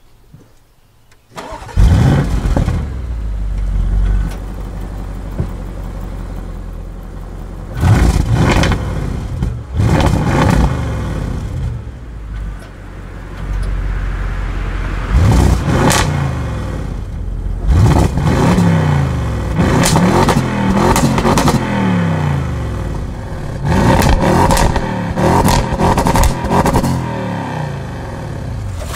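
Audi RS6's 4.0-litre twin-turbo V8, heard at the RS sports exhaust in Dynamic mode, starting up with a loud flare about a second and a half in, then idling and being free-revved about six times, the revs rising and falling with sharp crackles at the peaks.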